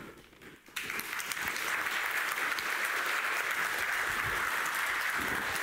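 Audience applauding, starting suddenly under a second in and holding steady.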